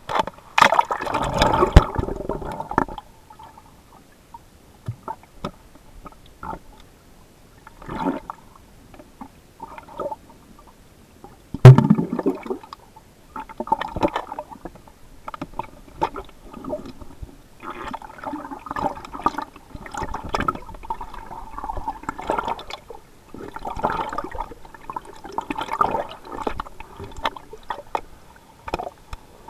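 Creek water heard through a submerged camera's housing: muffled gurgling and bubbling in uneven bursts. A loud splashing burst at the start as it goes under, and one sharp knock about twelve seconds in.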